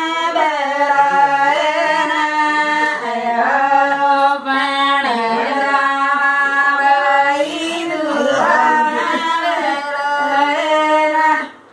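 Women singing a traditional ceremonial song together, with long held, bending notes and no instruments; the singing breaks off briefly near the end.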